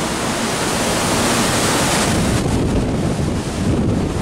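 Strong wind buffeting the microphone over the rush of a storm-tossed sea with breaking whitecaps. A bright hiss fades about two seconds in, leaving a lower, buffeting rumble.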